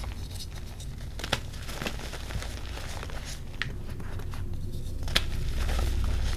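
Reformed gym chalk being crushed and crumbled, an irregular run of dry crunches and crackles with a sharper snap about a second in and another near the end.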